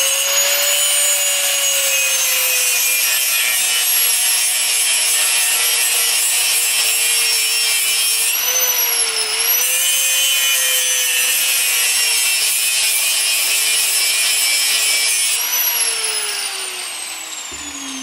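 Angle grinder with a cutting disc running and cutting into a steel ring on a stub axle held in a vise. Its pitch sags briefly about halfway through as the disc bites, and near the end it is switched off and winds down with a falling whine.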